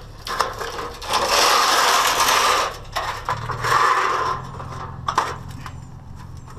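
A long painted sheet-metal strip being bent double by hand. Two loud stretches of crushing, crumpling metal come about a second in and again near four seconds, with scattered clicks and knocks.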